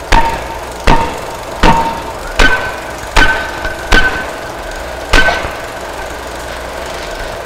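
A run of seven sharp, hammer-like strikes at a steady pace, about one every three-quarters of a second, that stop about five seconds in. Under them run a steady hum and a thin held tone that steps up in pitch about a third of the way through.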